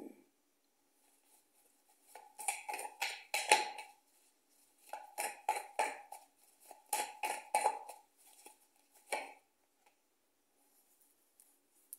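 A deck of divination cards being shuffled by hand: three bursts of rapid card flicking and slapping, each a second or two long, then one short burst near the end.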